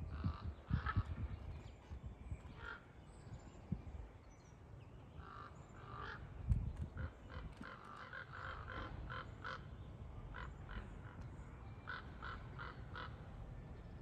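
Crows calling in short, harsh caws, in scattered runs of a few notes that grow busier in the second half, typical of crows mobbing a soaring hawk. Low thumps on the microphone come near the start, with the loudest about halfway through.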